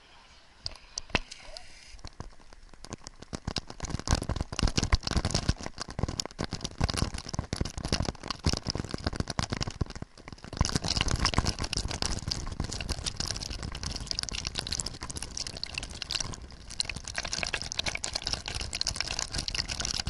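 Sea water splashing and washing over a waterproof camera at the waterline, a dense crackle of spray and drips on the housing. It starts with scattered drips, grows much louder about four seconds in, and has a short lull about ten seconds in.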